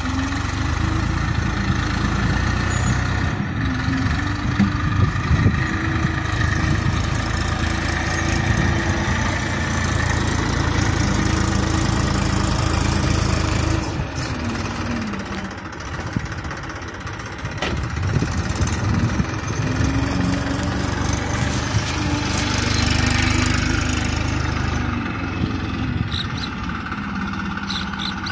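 Diesel tractor engine working under load as the tractor pushes and levels soil with its rear blade. The revs step up and down, drop for a couple of seconds about halfway, then rise again.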